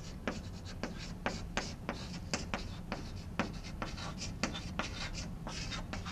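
Chalk writing on a blackboard: a quick, uneven run of sharp taps and short scratches as the chalk strikes and drags across the board.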